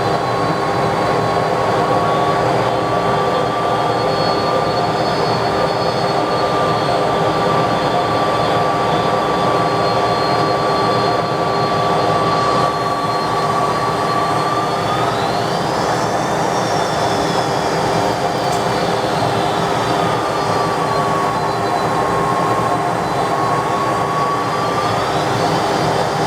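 McDonnell Douglas DC-10 jet engines running, a steady noise with a whine that shifts in pitch as thrust changes: it rises about halfway through, then dips and rises again near the end.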